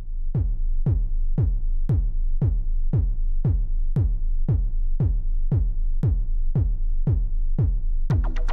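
Electronic dance music: a drum-machine kick drum beats steadily about twice a second, each hit dropping in pitch. More synth and percussion layers come in near the end.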